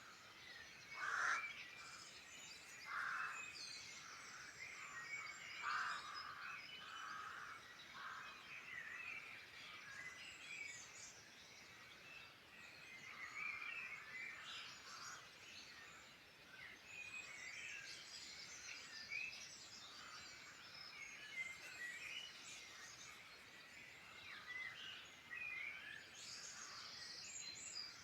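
A chorus of several songbirds singing at once: many short chirps, warbles and rapid trills overlapping, with a few stronger, lower-pitched calls in the first eight seconds.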